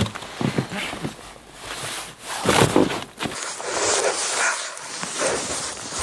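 Gloved hands brushing and scooping packed snow off a tractor seat, with irregular crunching and swishing. A short vocal sound stands out about two and a half seconds in.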